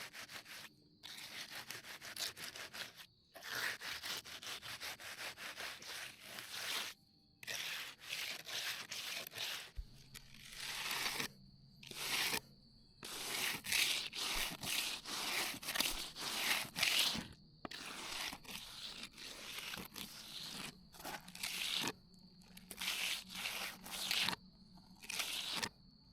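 Hand trowel scraping and rubbing over wet concrete in repeated strokes, working fresh concrete into divots to smooth the finish while it is still workable.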